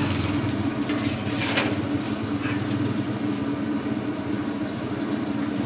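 Pakoras frying in a large kadhai of hot oil, sizzling over a steady low hum, while a perforated metal skimmer stirs them and scrapes against the pan a few times, loudest about a second and a half in.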